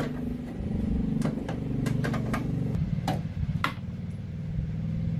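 An engine or motor running with its pitch wavering, with several sharp knocks over the middle few seconds.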